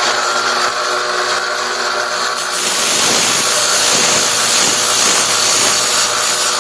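Electric grinder running steadily. About two and a half seconds in, a louder grinding hiss joins as the steel bayonet blade is pressed against it and sharpened.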